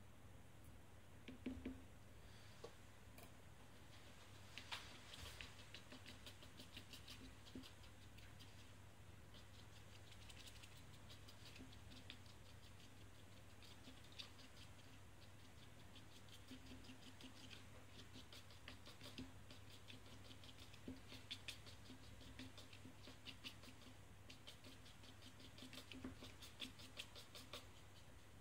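Faint, light scratching and ticking of a thin metal tool working inside a small plastic mold, many small strokes, over a steady low hum.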